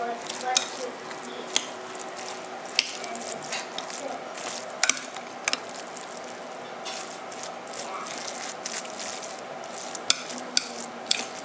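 A spoon stirring and mashing a thick mix of cooked rice and beans in a glass bowl, with irregular sharp clicks as the spoon knocks against the glass.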